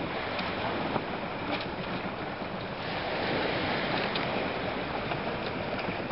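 Steady wash of wind and lake water: small waves lapping against a steel-edged pier wall, with wind blowing across the microphone.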